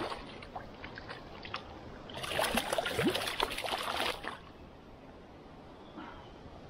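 Water splashing for about two seconds in the middle as a hooked lenok thrashes in shallow river water and is grabbed by hand, over a faint steady rush of the river.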